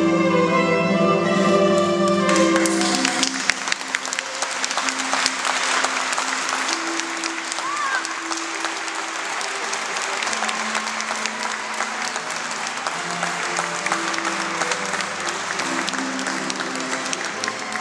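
Bowed string music plays a melody. About two and a half seconds in, a crowd's applause breaks out and goes on steadily, with the strings still softly heard beneath it.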